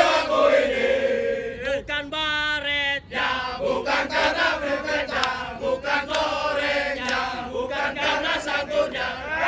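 A large group of men chanting in unison, loud and rhythmic. About two seconds in, a single voice holds a wavering note alone for about a second before the group comes back in.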